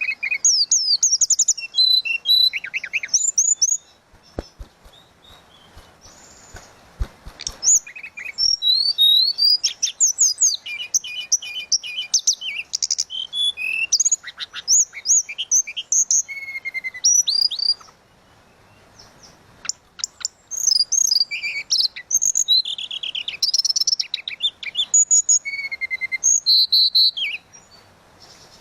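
Tledekan laut songbird singing a fast, varied, flute-like whistled song of quick rising and falling notes, in three long runs broken by short pauses.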